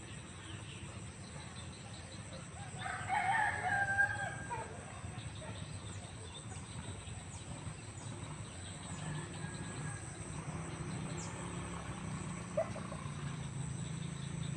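A single loud bird call, about a second long, a few seconds in, over a steady low hum.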